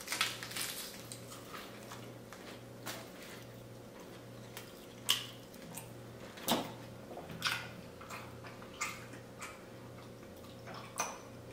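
Quiet chewing with scattered soft, wet mouth clicks and smacks from people eating burgers, over a faint steady hum.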